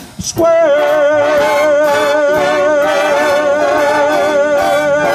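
Big band holding the long closing chord of a slow swing ballad, with saxophones, trombones and rhythm section together. A singer sustains the final note with vibrato over it. The held chord starts about half a second in.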